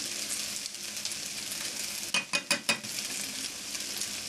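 Fried rice with vegetables sizzling in a hot pan as it is stirred, with a quick run of about five knocks or scrapes of a utensil against the pan a little past halfway.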